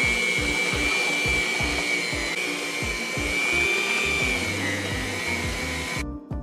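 Hamilton Beach hand mixer on its stand running, its electric motor and beaters creaming butter and sugar in a glass bowl with a steady high whine; the motor cuts off suddenly near the end.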